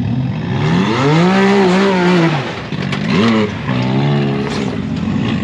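Side-by-side UTV engine revving up and back down under load, then a quick throttle blip and a lower, steadier pitch, as the machine nearly tips over on a steep rock climb.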